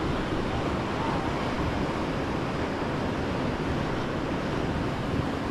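Steady wind rumble on the microphone, with lake water washing against the breakwall rocks.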